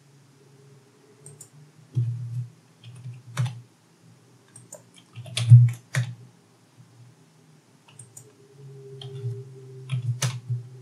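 Computer keyboard keys tapped in short, scattered runs, with a few sharper clicks and dull low thuds under them, the loudest about halfway through.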